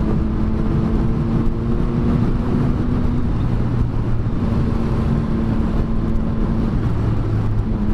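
Triumph Street Triple 765R's inline three-cylinder engine running on the road under heavy wind noise. The engine note drops and comes back up twice, about three seconds in and again near the end.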